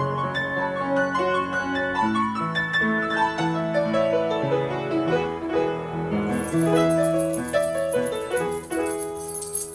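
Piano playing an instrumental passage, a moving line of notes over chords. A high, steady shimmer joins about six seconds in.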